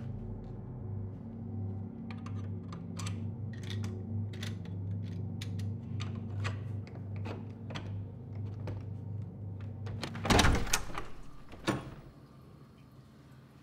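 Metal clicks and rattles of a door lock and handle being worked by hand, trying to open a locked door. About ten seconds in comes a loud thunk as the door gives, with a second knock a moment later. A low steady hum runs underneath and cuts off at the thunk.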